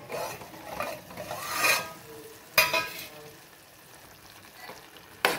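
Steel lid scraped off a pot of simmering tomato masala, with a sharp metal clank about two and a half seconds in and another click near the end. The tomatoes sizzle underneath.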